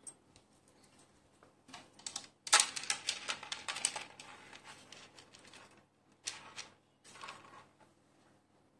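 A pearl-and-green-bead necklace clicking and rattling as it is handled and laid onto a display bust. The clicks come in spells: a short one about two seconds in, a longer, louder run just after it, and two brief ones near the end.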